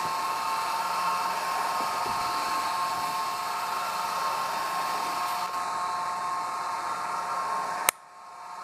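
12-volt DC gear motor of a solar tracker drive running under power, turning the threaded drive shaft: a steady whir with a steady whine in it. A sharp click comes near the end, and the sound drops away after it.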